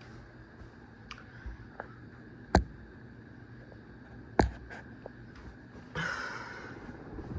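Ceiling fan running with a low hum, broken by two sharp clicks a couple of seconds apart and a few fainter ticks, with a brief rustle near the end.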